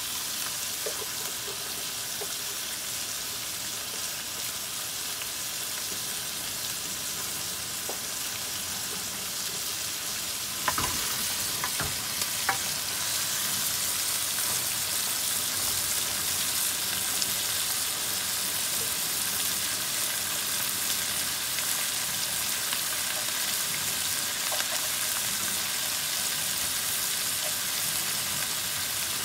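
Shredded salted fish frying in a stainless steel pan with a steady sizzle as it is stirred with a wooden spoon. About a third of the way in come a few knocks of the spoon against the pan, and after them the sizzle is louder.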